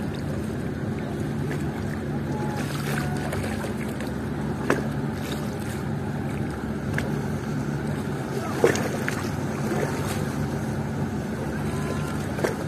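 A boat engine runs with a steady low drone over the wash of water, with a few sharp knocks along the way.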